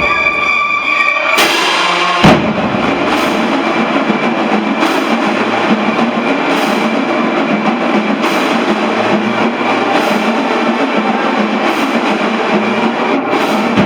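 Marching band playing: a held band chord breaks off about a second and a half in, and a loud hit lands just after. The percussion section then keeps up a dense, steady beat on bass and snare drums, with regular bright crashes on top.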